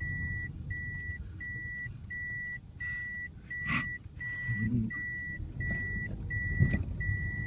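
A car's reversing beeper sounding inside the cabin: one steady high beep repeating evenly, about three every two seconds, over the low rumble of the car moving in reverse. A sharp knock comes about halfway through and another near the end.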